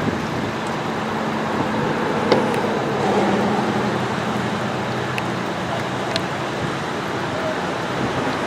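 Steady motor vehicle noise with a low hum, and a few faint clicks.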